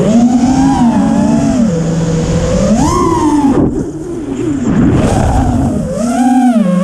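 Brushless motors of a 5-inch FPV freestyle quadcopter (T-Motor F40 III 2600 Kv) spinning tri-blade props: a whine whose pitch rises and falls continually with the throttle. It dips and turns ragged for about a second near the middle.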